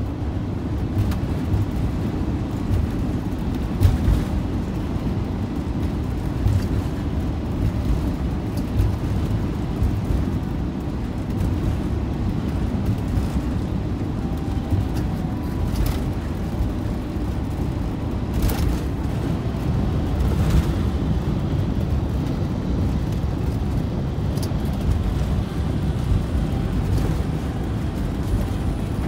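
Steady low road and engine drone inside the cab of a Fleetwood Bounder motorhome driving along the highway, with a few short knocks from the cab.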